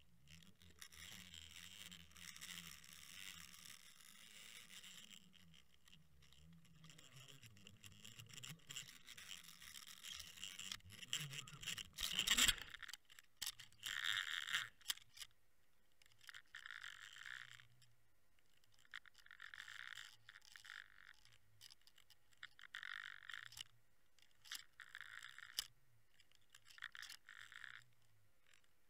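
Faint scraping and swishing picked up by an underwater camera rigged on a fishing line. There is one sharp knock about twelve seconds in, then short swishes every two to three seconds through the second half.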